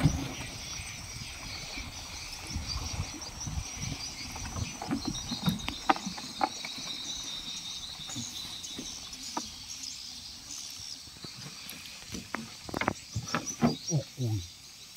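A boat motor cuts off at the very start, leaving a steady high chorus of insects and frogs. Scattered knocks and clicks come from the boat, in small clusters around the middle and near the end.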